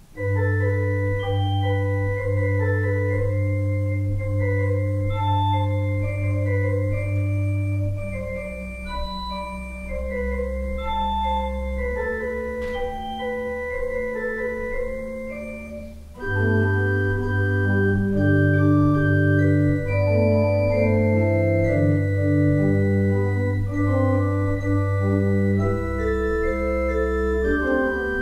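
Organ playing a prelude: held chords over long, sustained bass notes. The sound eases off towards the middle, then comes back louder and fuller after a brief dip about halfway through.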